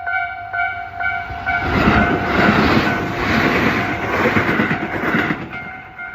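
A Tobu-type railway crossing warning bell rings its repeating electronic ding at about three strokes a second. From about a second in until near the end, a train passes over the crossing and its running and wheel noise drowns out the bell.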